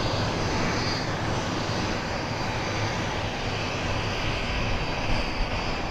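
BAE Hawk Mk.51A jet trainers' Adour turbofan engines running as the jets roll out along the runway after landing: a steady jet rumble with a thin high whine over it.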